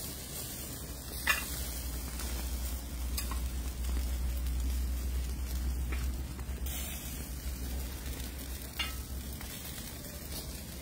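Chicken sizzling on a wire grill rack over an open wood fire, with a few sharp crackling pops from the fire, the loudest about a second in, over a steady low rumble.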